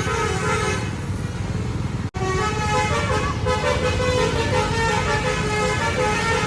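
A bus's telolet Basuri multi-tone horn playing a tune of stepping notes over the low rumble of running engines. It cuts out for an instant about two seconds in.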